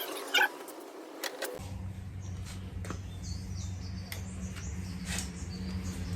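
A few sharp clicks and knocks, then, after an abrupt change in the background, a steady low hum with occasional clicks and small birds chirping in short high calls.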